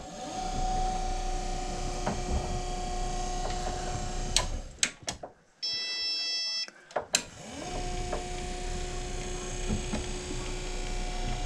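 Stairlift drive motor running with a steady hum as the carriage travels along its rail, in two runs of about four seconds each. Between them come clicks and a short beeping tone. The lift is running again after the missing spring on its overspeed governor was refitted.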